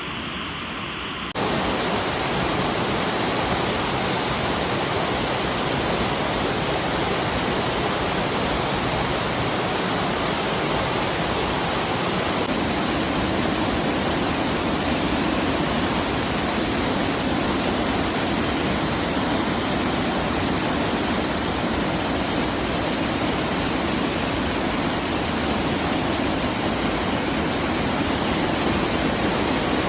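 A waterfall's steady rushing of falling water, loud and even, stepping up in level about a second and a half in.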